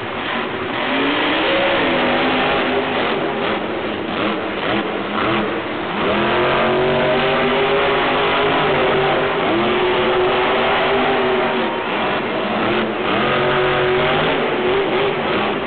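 Grave Digger monster truck's engine revving hard, its pitch climbing three times and held high for a few seconds each time as the truck is driven across the dirt.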